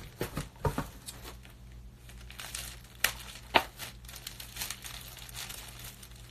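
A plastic packaging wrapper crinkling and tearing as it is worked open by hand, with two sharper crackles about three seconds in.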